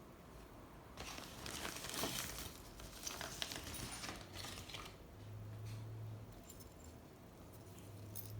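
Rustling of the bag and small metal clinks as an old padlock is pulled out by hand and handled.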